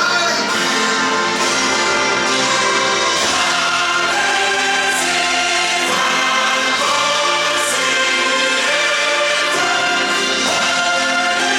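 Stage-musical music: a choir singing over orchestral backing, loud and sustained.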